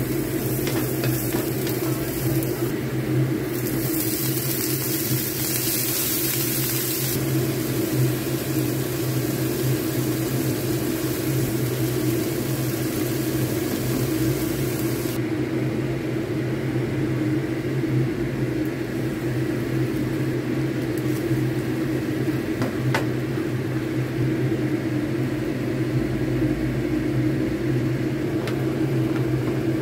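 Food sizzling as it fries in oil in a nonstick pan, over a steady low hum. The sizzle is brightest in the first several seconds and softer from about halfway on.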